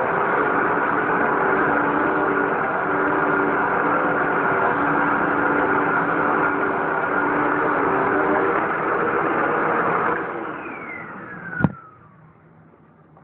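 Hoover Tempo WidePath bagged upright vacuum cleaner running steadily, then switched off about ten seconds in, its motor whine falling in pitch as it spins down. A single sharp click follows near the end.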